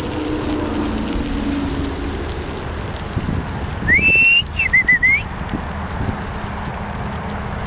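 A person whistles twice about four seconds in: first a quick rising note that is then held, then a short wavering note. Under it runs the steady noise of moving along the paved path behind the dog team.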